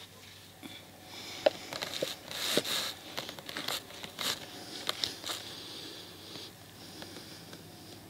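Close handling noise: rustling and crinkling with a string of sharp clicks, busiest in the first five seconds, then dying down.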